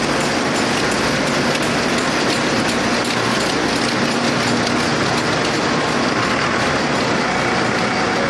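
Steady loud din of factory machinery: rows of yarn-winding machines running with a fast, even clatter.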